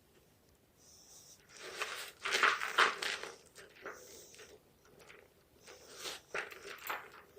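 Homemade gym chalk crunching and crumbling in close, crackly bursts: a loud cluster in the first half and a second, softer run near the end.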